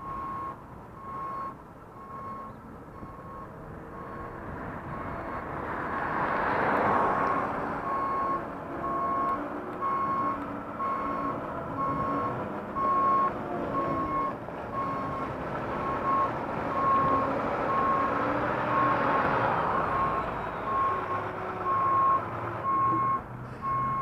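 Vehicle reversing alarm, one beep at a steady pitch repeating on and off throughout, over vehicle noise that grows louder a few seconds in.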